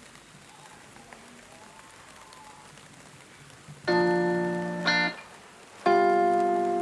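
A faint steady hiss like light rain, then two loud strummed guitar chords, the first about four seconds in and the second about six seconds in, each ringing for about a second before stopping.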